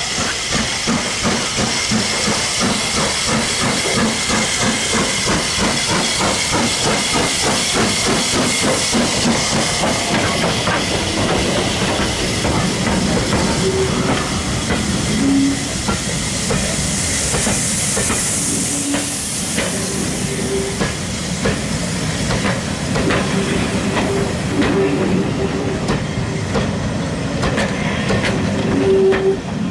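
Steam locomotive and its coaches passing close by: steam hiss and rhythmic exhaust beats as the engine goes past, then the coaches' wheels clicking over the rail joints, with brief squeals in the second half.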